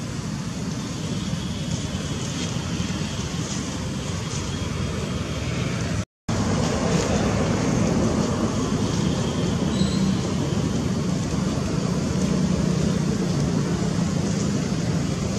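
Steady rumble of road traffic, with a brief total dropout about six seconds in.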